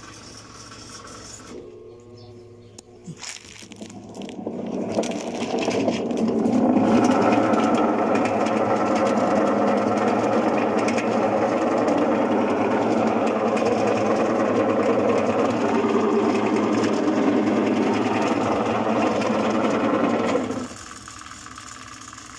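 Maytag Insignia top-loading washer agitating with an empty tub, its motor and transmission running steadily; the sound builds over the first few seconds and drops sharply in level near the end. The transmission is not making the cracking noise reported as its fault.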